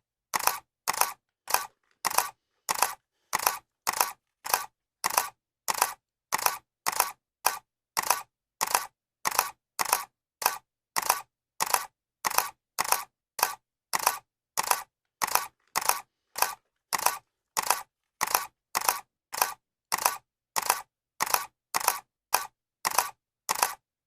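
Camera shutter clicking over and over at a steady pace of about two clicks a second. Each click is a quick double snap.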